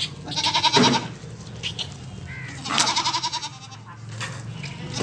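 Teddy goats bleating: two quavering bleats, one about half a second in and another near three seconds in.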